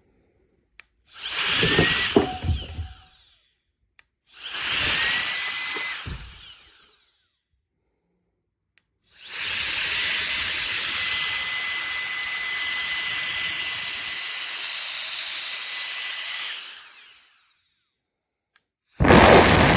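Cordless electric air duster, a small high-speed motor fan, blowing in bursts: two blasts of about two seconds each, a long blast of about eight seconds, and another starting near the end. Each time the motor's whine rises as it spins up and winds down when the trigger is released.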